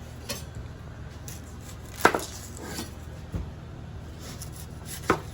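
A few sharp kitchen knocks of knife and utensils on a board and pot, the two loudest about two seconds and five seconds in, over a steady low hum.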